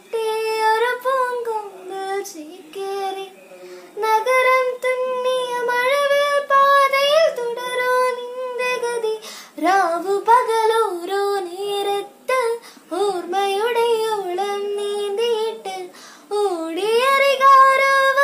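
A girl singing a Malayalam film song solo, without accompaniment, in long melodic phrases with short breaks between them.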